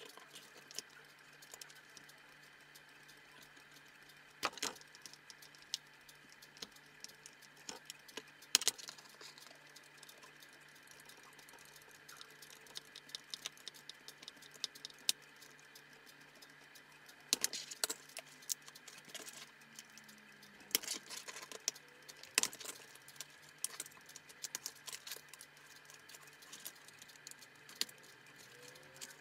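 Snap-off craft knife trimming a cut-out in a thin plastic toy-boat deck: scattered quick scrapes and clicks of blade on plastic, with a few sharper knocks as the part is turned and handled, over a faint steady hum.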